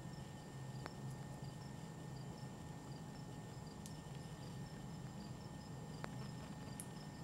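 Faint woodland sound: a few sharp clicks of white-tailed deer stepping in dry leaf litter, over a high chirping that repeats a few times a second and a steady low hum.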